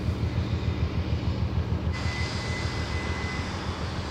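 Low, pulsing drone of the passing cargo ship Peak Belfast's diesel engine, throbbing a few times a second. About halfway through a higher hiss comes in abruptly, with a faint thin steady tone that stops about a second and a half later.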